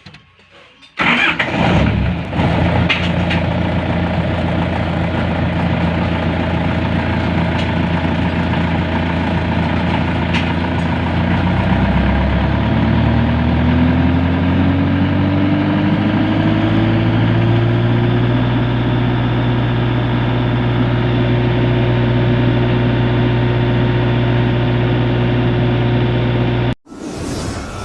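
A generator's engine starts about a second in and runs steadily at low speed, then rises smoothly in pitch as it speeds up to a higher steady speed, which it holds until it cuts off suddenly near the end.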